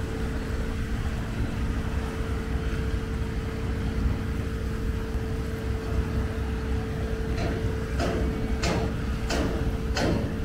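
A boat's diesel engine running steadily, a low rumble with a constant hum. From about seven seconds in, a run of about six sharp knocks, evenly spaced, a little under two a second.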